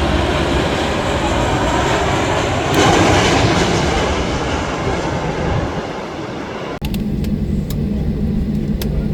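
Strong wind rushing across the microphone, a loud, even roar of noise. About seven seconds in it cuts off abruptly to a steadier low rumble with a few sharp clicks.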